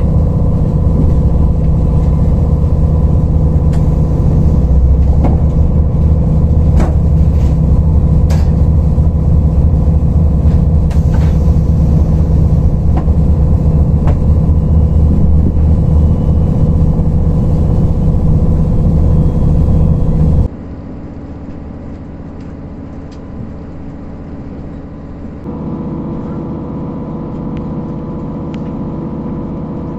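KiHa 183 series diesel railcar's engine running hard as the train pulls away from a station, a loud steady drone heard inside the passenger cabin, with scattered light clicks. About two-thirds of the way in the sound drops suddenly to a quieter rolling noise, and the engine drone comes back more softly near the end.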